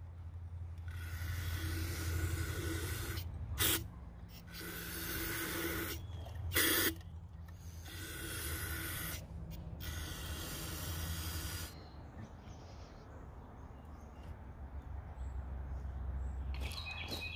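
Aerosol can of non-chlorinated brake parts cleaner spraying in four hissing bursts of about two seconds each with short pauses between, rinsing gunpowder residue out of a jar into a fuel tank. The spraying stops about two-thirds of the way through, leaving only faint background with a few small clicks near the end.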